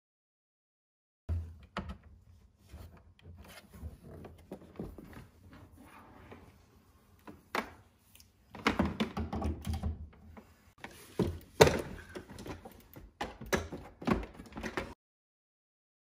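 Hard plastic knocks and thunks as a Roomba i3+ robot vacuum and its Clean Base dock are handled and set in place on a wooden floor. The loudest clusters of knocks come in the second half.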